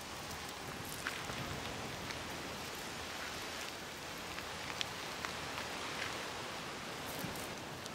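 Masses of Christmas Island red crabs scuttling over a rocky shore: a steady hiss of many small taps, with a few sharper clicks scattered through it.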